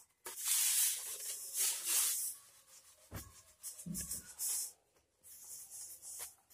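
Fingers rubbing and pressing pastry dough against the fluted edge of a tart pan, in several short bouts, with a couple of light knocks of the pan about three and four seconds in.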